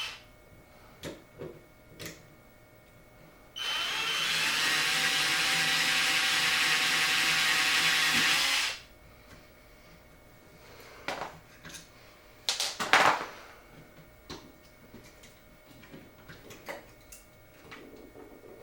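A power drill/driver runs steadily at one speed for about five seconds. Scattered light clicks and knocks of tool handling come before and after it.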